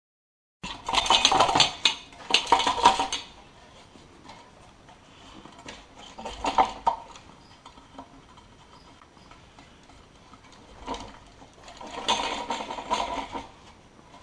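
Clinking, clattering and rubbing of small metal parts being handled, in several bursts: a loud stretch near the start, another about halfway, and more near the end.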